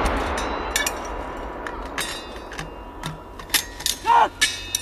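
The long rolling echo of a Carl Gustaf 84 mm recoilless rifle shot dying away, followed by several sharp metallic clicks and clinks as the crew handles the weapon and its rounds.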